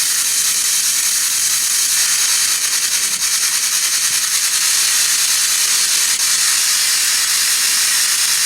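Loud, steady static hiss, chopped by fast, evenly spaced clicks.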